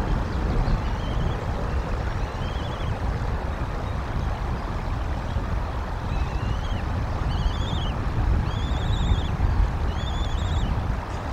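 Bald eaglet chirping during a feeding: about six short, quavering peeps, coming closer together and louder in the second half. Steady wind rumbles on the nest-cam microphone underneath.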